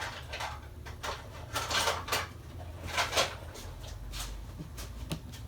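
Small screwdrivers being picked through and set down on a work surface: an irregular run of clicks, taps and short rattles with rustling between them.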